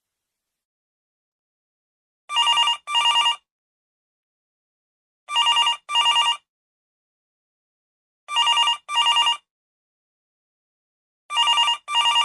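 Old telephone ringing in a double-ring pattern: four pairs of short trilling rings, each pair about three seconds after the last, starting about two seconds in, with the last pair cut off at the end.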